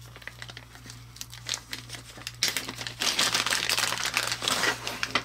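Plastic zip-lock bag of parts being handled and opened, crinkling, with scattered clicks at first and denser, louder crinkling from about three seconds in.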